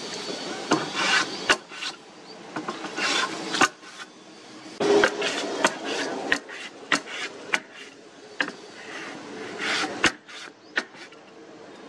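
Metal hand plane shaving a wooden plank in repeated push strokes, each a short rasping hiss, with sharp knocks between the strokes.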